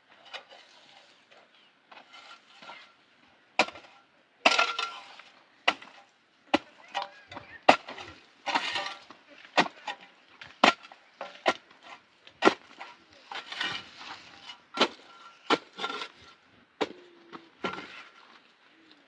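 Wood being snapped and knocked: about two dozen sharp cracks at irregular intervals, with brief rustling between them.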